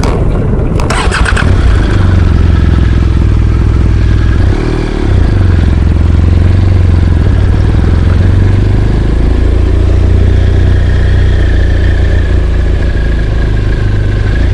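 BMW R1200GS Adventure's boxer-twin engine running, with a brief dip and change in pitch about five seconds in before it settles back to a steady run.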